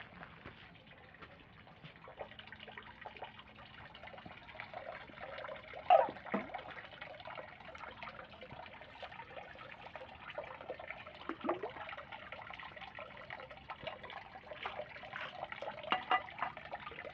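Water trickling from a metal dragon spout into a temizuya purification basin, a steady running-water sound. A few louder plops of falling drops come about six seconds in, again near eleven seconds and near the end.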